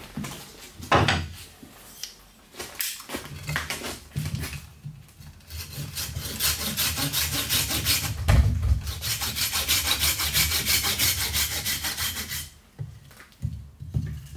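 A few sharp chops of a carving axe into a green-wood spoon blank on a chopping stump, the loudest about a second in. Then a Japanese folding saw cuts across the blank in rapid, even strokes for about seven seconds, stopping a couple of seconds before the end, followed by a few more knocks.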